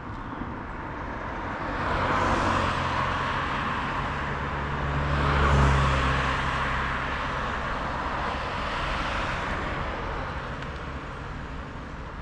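Road traffic passing: motor vehicles swell past over a steady traffic rush, one about two seconds in and a louder one with a low engine drone around five to six seconds.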